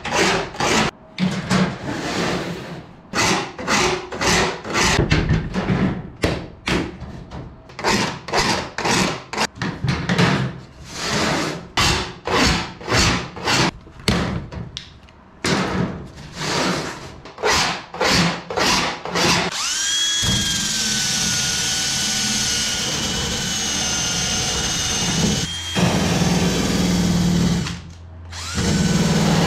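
Hand file rasping in short strokes, about one or two a second, deburring the edges of lightening holes in an aluminum wing spar. About twenty seconds in, a Dremel rotary tool spins up with a quick rising whine and runs steadily, dipping briefly twice.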